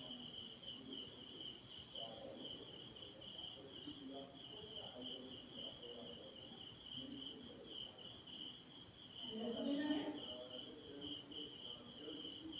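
Crickets chirring steadily: a continuous, finely pulsing high trill.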